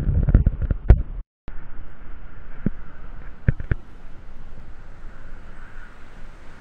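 Low in-car road rumble with several knocks, cut off about a second in. Then a river flowing steadily, with wind on the microphone and a few faint clicks.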